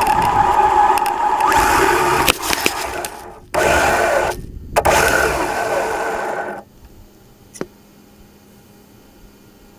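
Traxxas Slash Ultimate RC truck under way: the brushless electric motor whines steadily, then surges in a few bursts with brief dropouts. It cuts off about six and a half seconds in, leaving a faint hiss and a single click.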